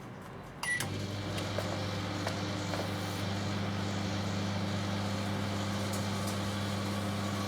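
Microwave oven switched on: a click and a short beep about a second in, then the oven running at full power with a steady low mains hum and the whir of its fan.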